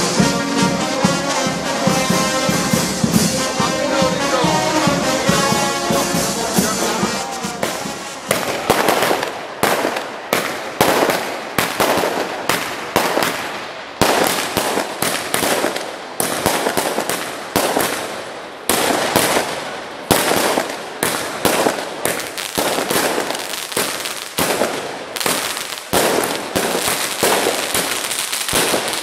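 A brass band playing, then about eight seconds in fireworks take over: a rapid, irregular string of sharp bangs, about two a second, each dying away quickly, as rockets go up and burst.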